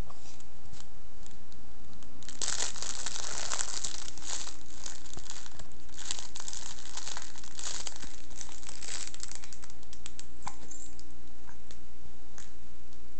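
Crinkling, rustling noise, dense and crackling, starting about two and a half seconds in and dying away about ten seconds in, followed by a few single short clicks.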